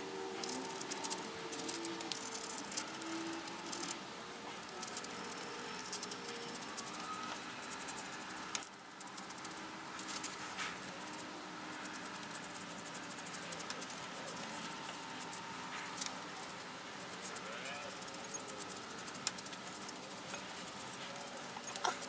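Hands rubbing oil finish into a rough, bark-covered wooden root held in a lathe: faint wiping and handling noise with scattered small clicks and rattles, over a low steady hum.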